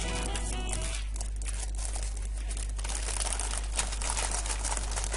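Thin clear plastic parts bag crinkling and rustling as hands open it and handle it, with LEGO pieces inside. The background music stops about a second in.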